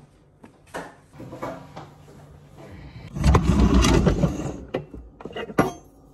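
Handling noises: a few light knocks, then a loud rumbling scrape as the phone is picked up and moved over the countertop, then several sharp clicks and knocks near the end.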